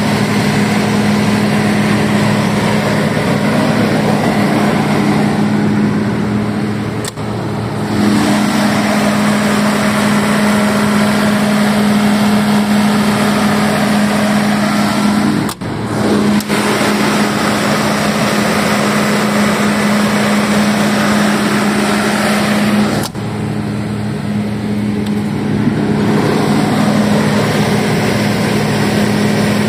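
FG Wilson 200 kVA turbocharged diesel generator set running steadily at its governed speed of about 1500 rpm, a constant deep hum with a few brief dips in level.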